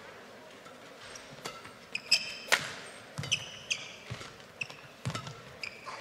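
Badminton rally: rackets striking the shuttlecock in a quick, irregular series of sharp cracks starting about a second and a half in, with players' shoes squeaking on the court floor between hits.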